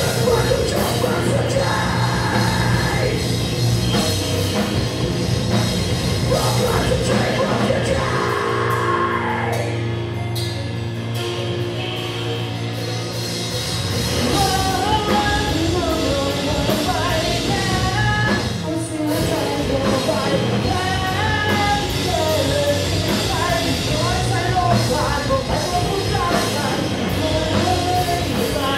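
Live post-hardcore band playing electric guitars, keyboards and drum kit with a lead singer. About a third of the way in the low end drops out and the band holds sustained chords. Around halfway the full band comes back in with singing.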